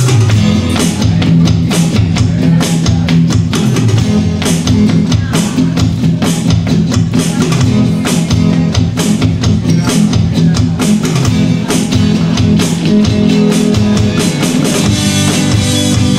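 Live techno-pop band playing an instrumental passage: a steady drum kit beat with electric guitar and synthesizer over sustained low synth tones.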